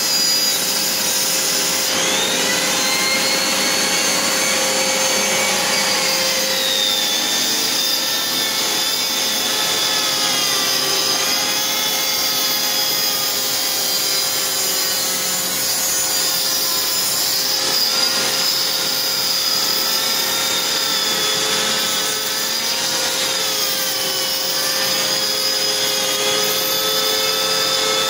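High-speed rotary tool on a flexible shaft grinding old grout out of a tile joint, its whine wavering up and down in pitch as the bit bites, with a vacuum cleaner running steadily at the hose nozzle beside it.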